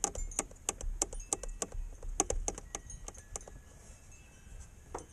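Quick, irregular metallic clicks and rattles of a small hose clamp and hand tools being worked onto a hose. The clamp is being forced on and keeps slipping apart. The clicks are dense at first and thin out after about three and a half seconds.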